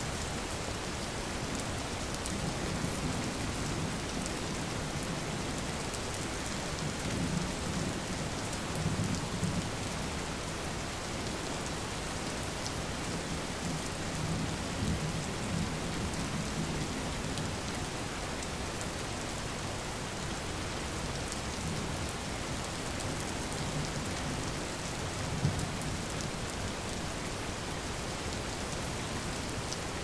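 Steady heavy rain hissing, mixed with the rush of a waterfall. Low rumbles of distant thunder roll in several times, with the strongest swells a few seconds apart around the middle and one short peak near the end.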